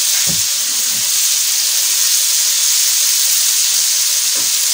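Flour-coated calamari pieces deep-frying in hot oil, a steady sizzle.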